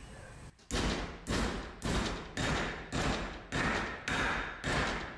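Short-handled sledgehammer striking a metal exhaust hanger rod clamped in a bench vise, bending it: eight steady blows, nearly two a second, each ringing briefly, starting just under a second in.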